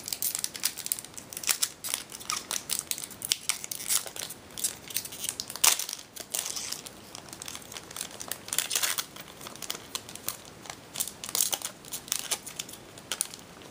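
Foil Yu-Gi-Oh booster pack wrapper crinkling and tearing as it is pulled open by hand, an irregular run of sharp crackles.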